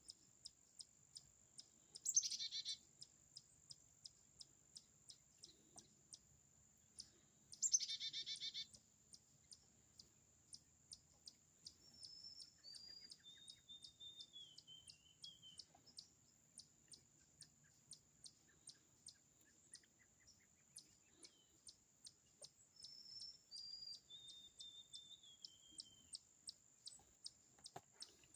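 Songbirds calling: two short, loud, harsh calls about five seconds apart, and later two twittering song phrases that fall in pitch. Under them runs a steady high insect trill with a tick about twice a second.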